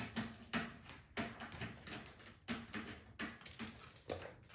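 Kittens play-fighting on a hard floor: irregular light taps, clicks and scratches of small claws and paws, a few a second.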